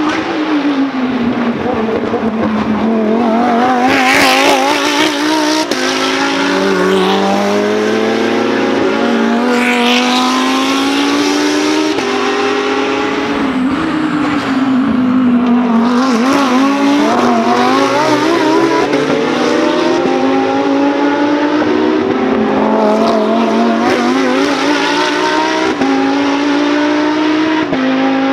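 Lamborghini Huracán GT3 race cars' V10 engines going past at racing speed, the pitch falling on downshifts under braking and climbing again on the upshifts, with more than one car overlapping at times. A few short crackles come near the downshifts.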